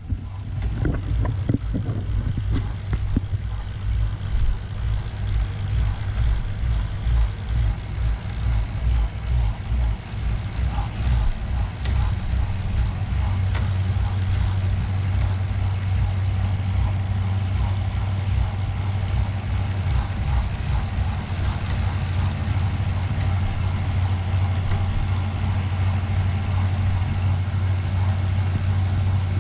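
Bike drivetrain spinning on a Tacx Flux S turbo trainer under pedalling, with the trainer's steady low hum, which grows louder and steadier about halfway through. Faint ticks come through now and then: the intermittent click every couple of pedal strokes that the rider suspects comes from the chain, perhaps at the quick link.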